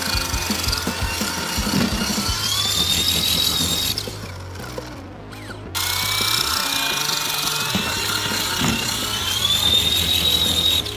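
Small electric RC helicopter's motor and rotor whining, the pitch rising steadily as it spools up to lift off. The whine breaks off suddenly about four seconds in, then rises again from about six seconds in. Background music plays underneath.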